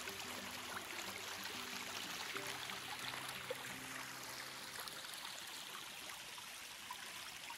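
Spring-fed stream running steadily, full after heavy rain: an even rush of flowing water.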